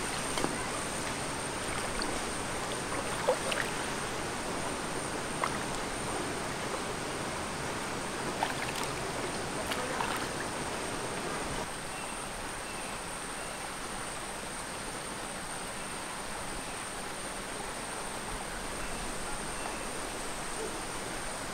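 Shallow stream flowing steadily, with occasional small splashes and knocks as a fish is rinsed by hand on the rocks in the first half. About halfway through, the water sound becomes a little quieter and the splashes stop, while a thin, steady high-pitched tone runs on throughout.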